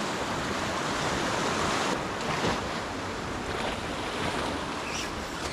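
Ocean surf washing in steadily, with wind on the microphone; the wash is a little stronger in the first two seconds.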